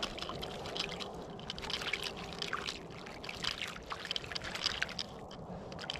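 Small irregular splashes and trickling of water at the surface, many quick uneven drips and sloshes.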